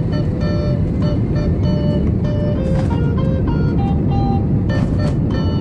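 Background music, a melody of short repeated notes, over a loud, steady low rumble of airliner engine and cabin noise.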